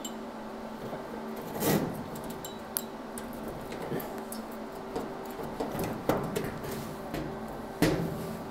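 A hand-operated sheet-metal stretcher, worked by long welded-on handles, gripping and stretching the steel hood edge. Its jaws give a metallic click or clunk every second or two, the loudest about two seconds in and near the end, over a steady low hum.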